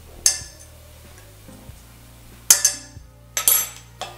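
A metal fork clinking against a plastic measuring spoon and a saucepan while butter is scraped off into the water: one sharp clink shortly after the start and three more in the second half, under faint background music.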